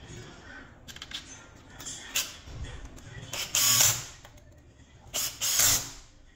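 Makita cordless impact driver with a long bit running in two short bursts, under a second each, on the housing screws of a Makita DTW1001 impact wrench. Light clicks of parts being handled come before them.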